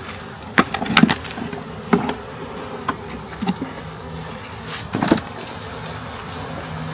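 Honey bees buzzing steadily around an opened hive, with several sharp wooden knocks and scrapes as hive boxes and frames are handled. The loudest knocks come about a second in and again about five seconds in.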